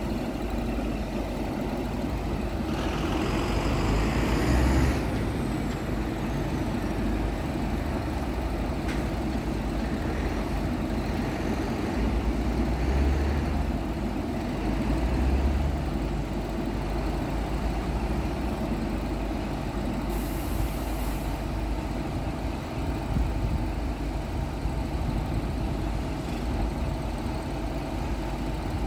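Scania P truck's diesel engine running steadily while its loader crane is worked from the side controls, with a burst of hissing and a falling high whistle about three seconds in and a short high hiss around twenty seconds in.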